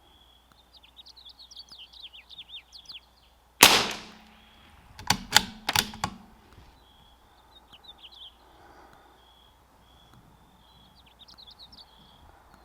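A single .22 LR shot from a CZ 457 bolt-action rimfire rifle about three and a half seconds in. A second and a half later comes a quick series of four metallic clicks as the bolt is worked to eject the case and chamber the next round. Birds chirp around it.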